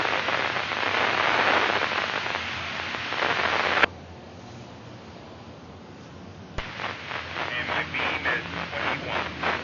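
Two-way radio traffic on the webcam feed. A hissy, static-laden transmission cuts off abruptly with a squelch click about four seconds in. After a few seconds of quiet, another transmission keys up with a click, carrying choppy, indistinct chatter.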